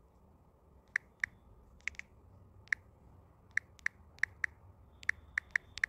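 Key taps on a smartphone's on-screen keyboard as a search is typed slowly. About a dozen short, sharp clicks come at uneven spacing, some in quick pairs, over a faint low background hiss.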